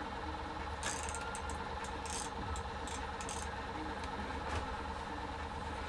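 Steady low mechanical hum, with a run of short rattling and scraping noises from about one to three and a half seconds in as a fishing rod and reel are handled.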